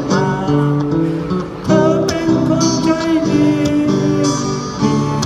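Music with acoustic guitar strumming.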